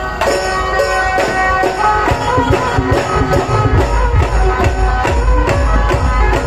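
Loud music played over a DJ sound system: a sustained melody over about three percussion hits a second, with a heavy bass beat coming in a couple of seconds in.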